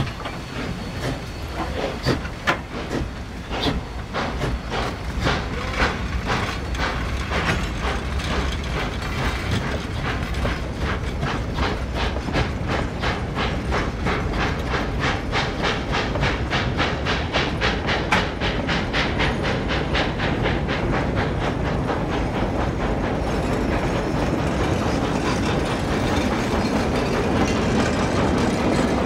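K-28 narrow-gauge steam locomotive No. 476, a mid-train helper, getting a train under way: its exhaust chuffs start slow and quicken steadily into a rapid beat. About two-thirds of the way through, the chuffing fades under the steady rolling noise of passenger coaches passing close by.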